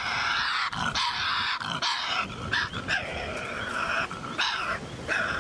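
Tasmanian devil shrieking: a loud, harsh, rasping screech, nearly unbroken, with a few short pauses.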